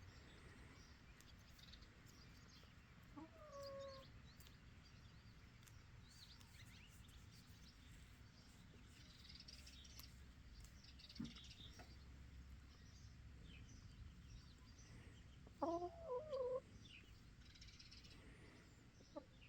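Chickens calling: a drawn-out call that falls in pitch about three seconds in, and a short run of louder calls near the end. Faint high chirps come and go throughout.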